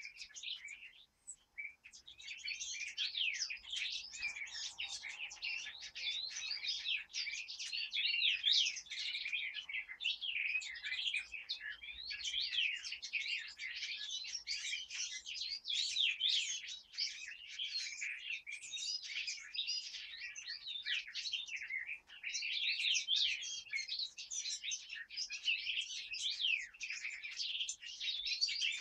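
Many forest songbirds singing at once: a dense chorus of overlapping high chirps, trills and quick whistles. It thins briefly in the first couple of seconds, then stays thick throughout.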